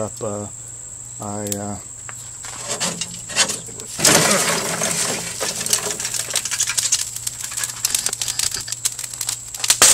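Lit charcoal poured from a chimney starter onto a grill grate about four seconds in: a rush of coals tumbling out, then crackling and clinking as the hot coals and sparks settle, with a sharp click near the end.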